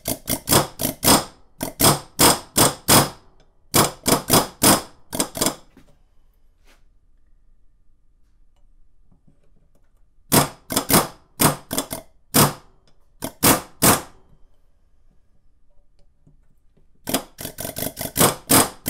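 Pneumatic air hammer with a chisel bit rattling against a dirt bike's lower steering stem bearing in short trigger bursts, driving the tapered bearing off the stem little by little. The blasts come in three groups, with pauses of a few seconds between them.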